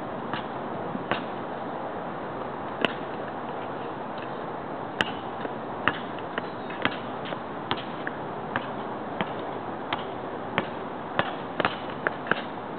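A basketball dribbled on asphalt: a string of sharp bounces, irregularly spaced and quickening to about two a second in the second half, over a steady hiss.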